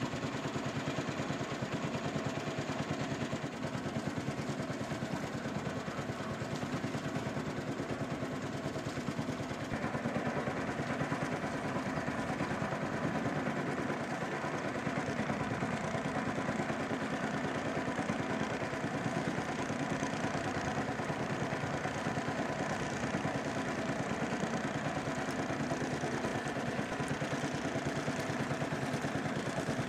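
Small boat's engine running steadily at low speed, a little louder from about ten seconds in.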